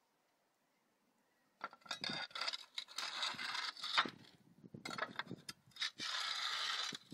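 Small clay plain roof tiles scraping against the neighbouring tiles and a steel flat pry bar as one is slid out of the roof and a tile is slid back into the gap. The scraping starts about a second and a half in and comes in two long spells with a short break between them.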